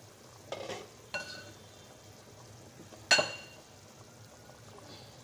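Beef stock with whole spices simmering in an uncovered pot on a gas stove, a faint steady background. Two light metallic clicks come about half a second and a second in, and a sharp, ringing metal clink about three seconds in is the loudest sound.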